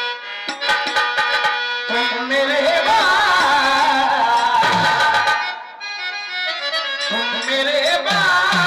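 Live Indian folk stage music: a harmonium's steady reed tones and tabla accompany a singer into a microphone. The voice comes in about two seconds in, drops out briefly past the middle, and returns near the end.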